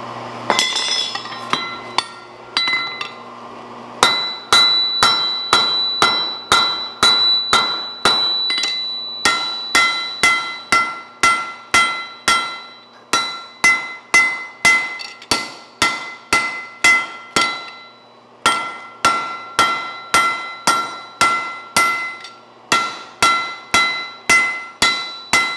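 Blacksmith's hand hammer striking steel on an anvil about twice a second, with short pauses, each blow leaving the anvil ringing. The blows feather out an axe blade after it has been worked with a spreading fuller. The strikes begin about four seconds in.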